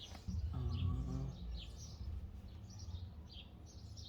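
Small birds chirping over and over, short quick high notes a few times a second. A brief low rumble with a short hum comes just after the start.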